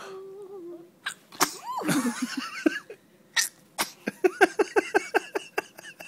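Newborn baby sneezing: a few short sharp bursts, with a quick run of short, choppy sounds in the second half.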